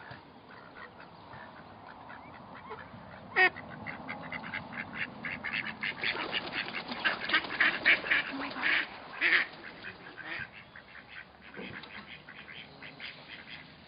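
Mallard ducks quacking in quick runs of short calls, with one loud call about three and a half seconds in, busiest and loudest in the middle, then trailing off near the end.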